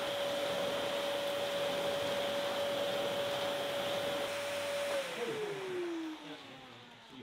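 Canister vacuum cleaner running steadily on carpet with a high motor whine. About five seconds in it is switched off and the whine falls in pitch as the motor spins down.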